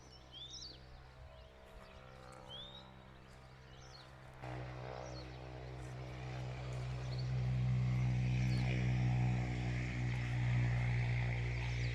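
Steady engine drone, faint at first, then suddenly louder about four seconds in and swelling further until about eight seconds in. A few short rising chirps sound in the first few seconds.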